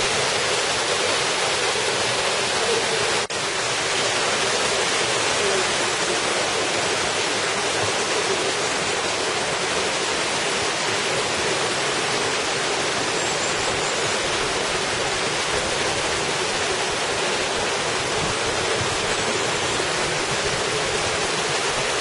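Mountain stream rushing over rocks and shallow riffles: a steady, loud hiss of running water, with a momentary drop-out about three seconds in.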